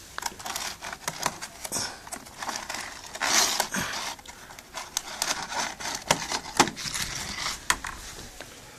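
Clear plastic food tub being handled close to the microphone: irregular plastic clicks and crinkling, with a louder rustle about three seconds in.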